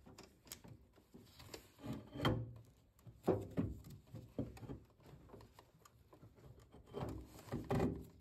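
Irregular light knocks, clunks and scraping as a combi boiler's plate heat exchanger is wiggled and worked free of the pipework and housing inside the boiler, with louder clunks about two, three and seven seconds in.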